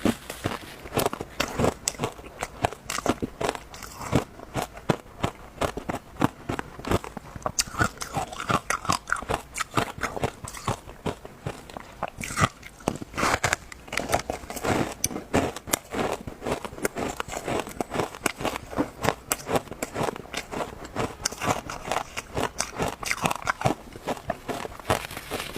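Matcha shaved ice being bitten and chewed: a dense, irregular run of crisp crunches.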